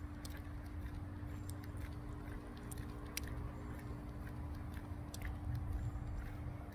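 Outdoor ambience: a low rumble with a steady faint hum and scattered faint clicks.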